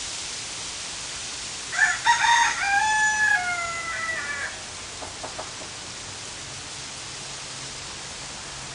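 A rooster crows once, about two seconds in, a call of roughly two and a half seconds that ends in a long, slightly falling note, over a steady hiss.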